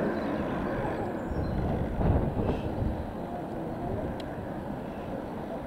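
Distant steam locomotive working under steam as it approaches along the line, heard as a steady low rumble that swells briefly about two seconds in. The engine is the LMS Jubilee class three-cylinder 4-6-0 'Alberta'.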